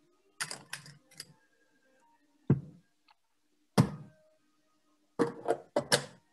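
Clatter of a metal ice-cream scoop and spoon against a plastic ice-cream tub as ice cream is scooped out: a quick run of clicks near the start, two sharp knocks in the middle, and a few more clicks near the end.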